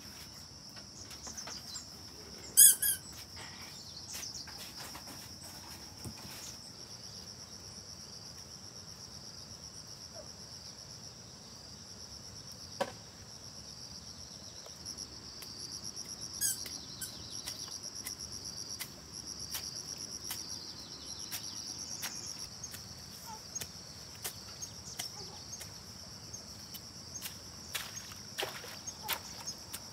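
Steady high-pitched chorus of crickets, with a short, loud bird chirp about three seconds in and a fainter one midway, over scattered light clicks and taps.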